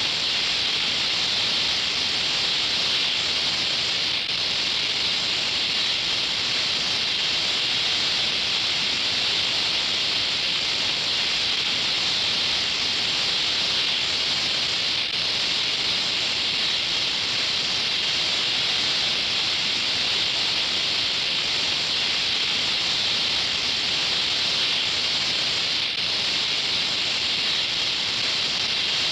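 Oxy-acetylene welding torch flame hissing steadily, an even high hiss that does not change.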